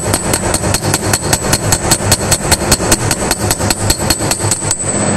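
Rapid, even hammer blows, about six or seven a second, of a hammer striking an old steel bearing race laid on top of a new wheel-bearing outer race, driving the new race into a Mercedes W140 front wheel hub. The blows stop shortly before the end, as the race is seated.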